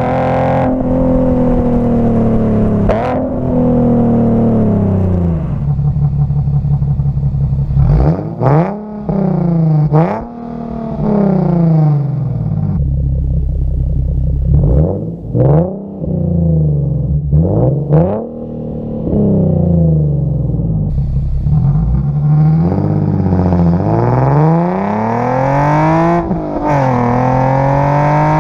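Nissan 370Z's 3.7-litre V6 through an aftermarket short-tail exhaust, driven hard through the gears. The engine note climbs in pitch, then drops at each quick gear shift, several times over, with a few steadier stretches and a long climb near the end.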